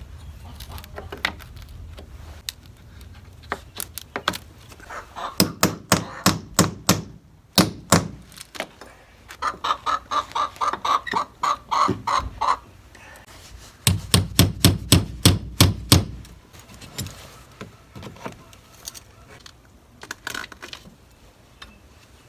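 Small crowbar prying and knocking at a wooden glazing retainer strip on a window frame: several runs of rapid knocks, about five a second, the heaviest about two-thirds of the way through. Hens cluck in the background.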